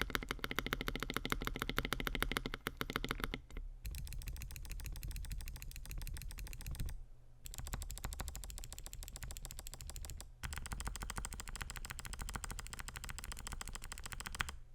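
Fast typing on an FL.eSports Q75 mechanical keyboard with lubed clicky Kailh BOX Jellyfish switches, a polycarbonate plate and polycarbonate FSA keycaps: a dense stream of keystrokes in four runs broken by short pauses.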